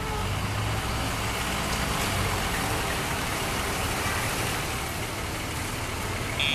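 Steady low rumble of a motor vehicle engine running, under a broad hiss.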